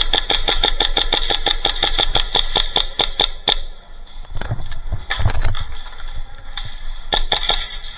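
Airsoft electric gun firing a long full-auto burst, about nine shots a second with the gearbox motor's whine under them, stopping about three and a half seconds in. Scattered knocks and a few single shots follow near the end.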